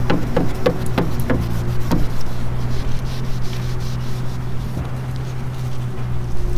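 A shop rag rubbing and buffing a hazy plastic headlight lens by hand, with scratchy strokes for the first two seconds that then fade, over a steady low hum.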